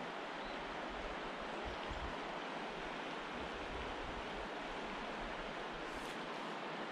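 Steady rushing of a small creek flowing over rocks, with occasional low wind rumble on the microphone.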